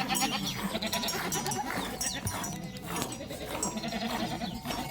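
A flock of sheep and goats bleating, with many calls overlapping.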